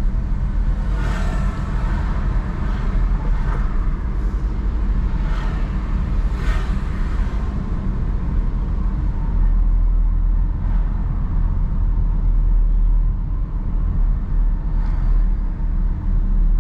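Car driving along a town street, heard from inside: a steady low road and engine rumble, with a few brief hissing swells in the first several seconds.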